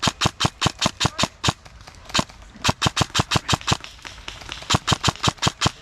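Airsoft gun firing rapid strings of shots, about eight a second, in three bursts separated by short pauses.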